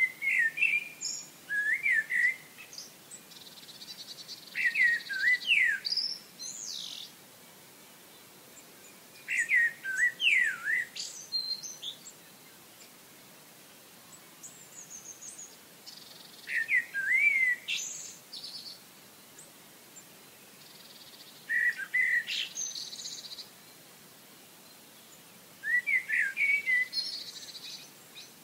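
A songbird singing short phrases of sweeping whistled notes, each phrase a second or two long, repeated about every four to five seconds, with fainter, higher twittering between phrases.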